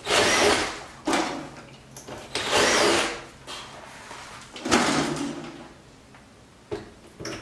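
Power drill with a 3/16 bit drilling out the rivet holes in a carbon fiber front splitter, running in several short bursts with the motor whine rising and falling.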